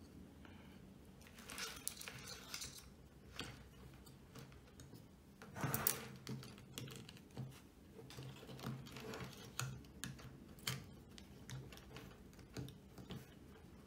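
Scattered light clicks, taps and rattles as a speaker crossover circuit board and its wires are handled and clipped into the metal alligator clips of a helping-hands stand, with a louder handling rustle about six seconds in.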